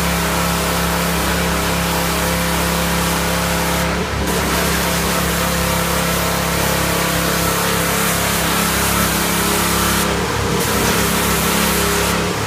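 Pressure washer running: a steady motor-and-pump hum under the hiss of the water jet striking the car, dipping briefly about four seconds in and again about ten seconds in.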